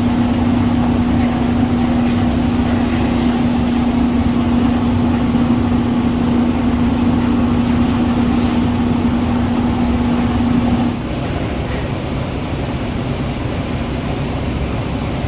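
Air compressor running with a steady hum and hiss, cutting out abruptly about eleven seconds in and leaving a quieter steady drone.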